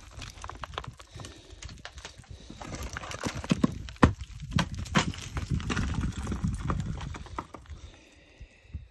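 Hiking boots scuffing and knocking on sandstone ledges and loose scree during a climb, with small stones clattering in irregular knocks over a low rumble; the sharpest knock comes about four seconds in, and it quiets near the end.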